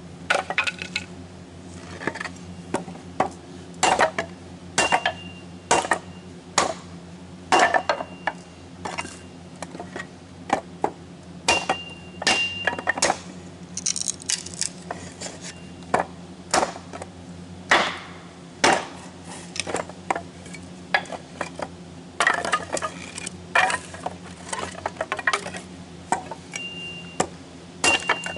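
Kindling being chopped by hand: a run of sharp, irregular knocks and clattering strikes, one or two a second, over a steady low hum.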